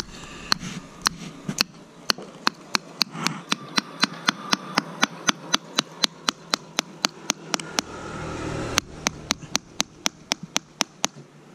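A small metal fuel strainer from an Ashok Leyland diesel engine rapped again and again against a block, about four sharp knocks a second with a brief break a little before 9 s. The knocking shakes loose the rust and dirt clogging the strainer, which had been starving the engine of diesel and causing white smoke at cold start.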